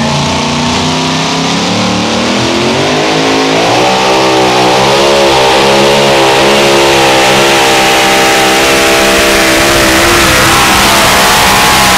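Supercharged V8 of a two-wheel-drive pulling truck, at first running unevenly at low revs. About three seconds in it climbs to high revs and holds there under full load, its pitch wavering, as the truck drags the weight-transfer sled.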